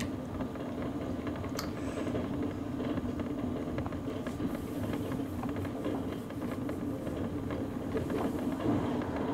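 Electric scooter's motor running steadily under way, a constant hum over a low rumble.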